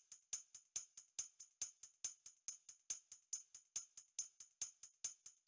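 Background music: a jingling tambourine-style percussion beat, about five hits a second.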